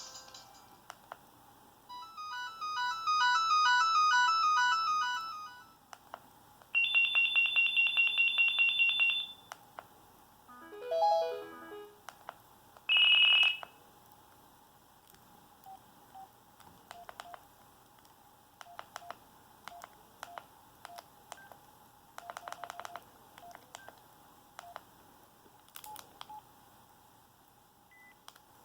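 Preloaded ringtones playing in turn through a Kyocera SE47 cell phone's small speaker: a chiming melody, then a fast-pulsing beep, a quick run of notes and a single short tone. From about halfway in, only faint clicks and short beeps.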